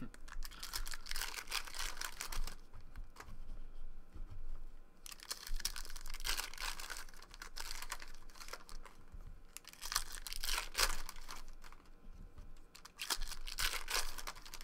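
Foil trading-card pack wrappers being torn open and crinkled by hand, in several irregular bursts with short quiet gaps between.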